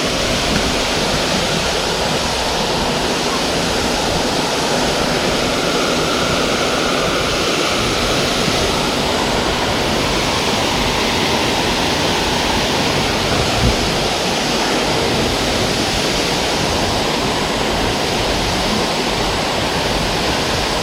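Small creek waterfall pouring: a steady, loud rush of falling water.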